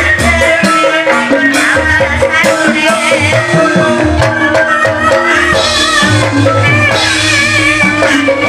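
Live Javanese gamelan music for an ebeg dance: bronze gongs, bonang kettle gongs and metallophones playing steady notes, low drum beats, and a wavering sung melody above.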